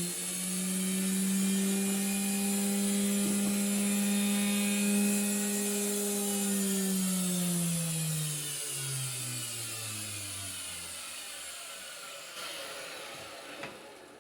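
Homemade wood router's electric motor running freely at speed with a steady hum, then switched off and spinning down. From about seven seconds in its pitch falls steadily and the sound fades away.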